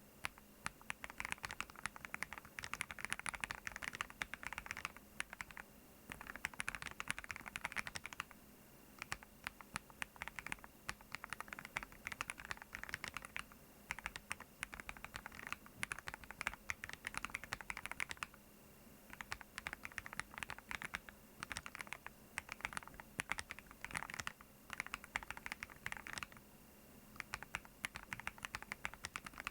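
Typing on a Meteorite40 mechanical keyboard: fast runs of keystroke clicks, broken by short pauses of about a second every few seconds.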